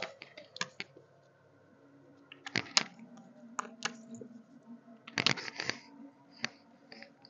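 Scattered short clicks and taps from whiteboard markers being handled at the board, louder in two clusters about two and a half and five seconds in, over a faint steady hum.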